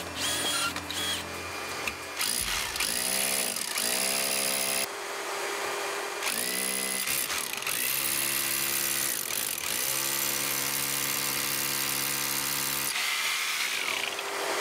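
Electric drill boring a hole through an interior wall. It starts and stops several times: each time the motor whines up in pitch, runs steadily for a second or several, then cuts out.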